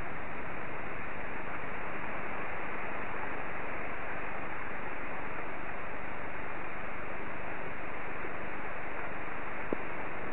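Pouring rain as a steady, even hiss, heard through a garden security camera's microphone, with one small tap near the end.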